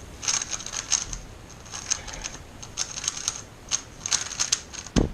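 Speedcube being turned fast: quick irregular clusters of plastic clicks and clacks as the layers snap around. A heavier thump lands about five seconds in.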